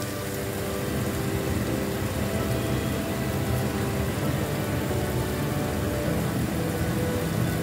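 Chicken thighs sizzling in hot oil in a frying pan: a steady hiss and crackle with a steady low hum beneath it, growing a little louder over the first second.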